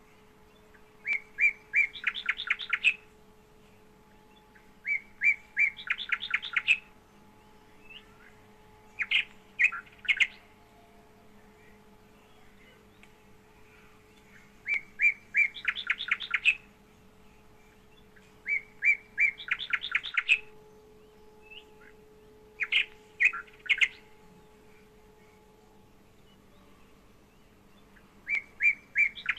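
A small songbird singing in repeated short phrases, each a few clear notes running into a quick trill, about every four seconds, seven times. A faint steady hum runs underneath.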